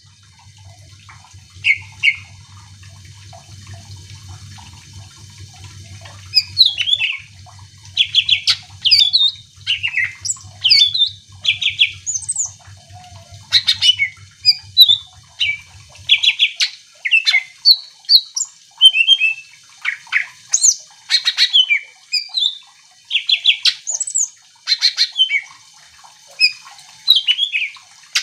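Cucak ijo (green leafbird) singing hard: a fast run of short, loud whistled notes, trills and chattering phrases, near-continuous after the first few seconds. A low hum sits beneath the song and stops about halfway through.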